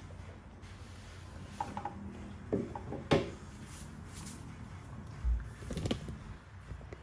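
Handling of a cardboard collectible box: scattered rubbing, rustling and knocks, the sharpest knock about three seconds in and a dull thump a little after five seconds.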